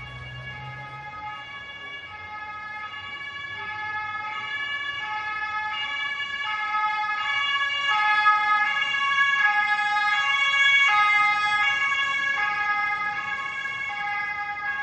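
Ambulance two-tone siren alternating steadily between a high and a low note. It grows louder to a peak about two-thirds of the way through, then fades as it passes.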